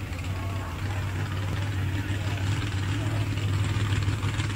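Jet sprint boat's engine running with a steady low drone, getting slightly louder toward the end.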